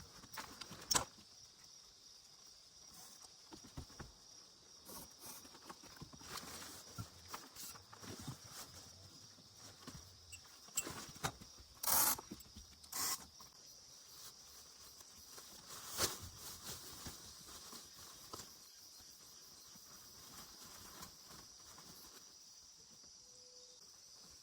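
Crickets and other night insects chirring steadily in a high band, with scattered irregular taps and knocks, the loudest a few clustered around the middle.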